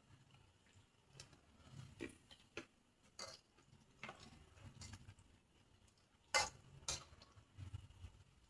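Close-up eating sounds: chewing crunchy raw vegetables, with scattered sharp crunches and clicks. The loudest are two about six and a half and seven seconds in.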